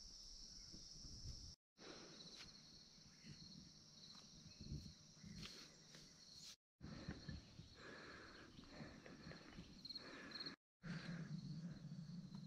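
Faint steady insect chorus trilling high, with soft irregular footsteps and brushing through vegetation underneath. The sound drops out completely three times for an instant.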